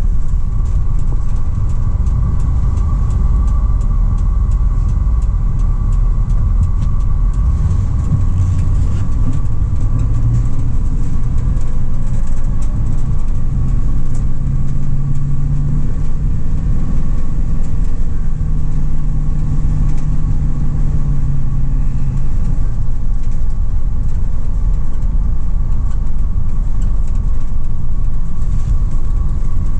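2004 GMC Savana 3500 box van on the move: a steady low rumble of engine and road noise, with a faint high whine. About halfway through the engine note rises and holds for several seconds as the van picks up speed, then drops back.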